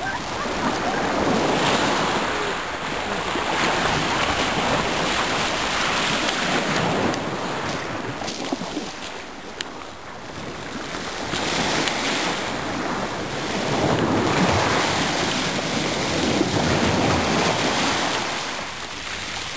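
Wind blowing across the microphone in gusts, rising and falling every few seconds, over small waves washing on a pebble shore.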